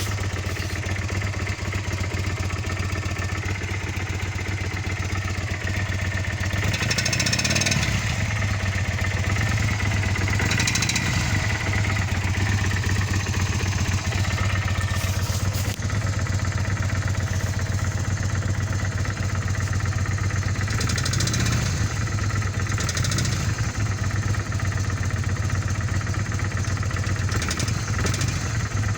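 1997 Kawasaki Vulcan 800's V-twin engine running at idle with a knocking noise whose cause the owner is trying to find. The sound picks up briefly a few times.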